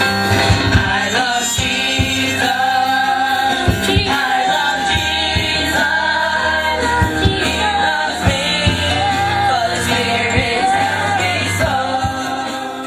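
Gospel song with sung vocals over a keyboard and a steady bass and beat, fading out at the very end.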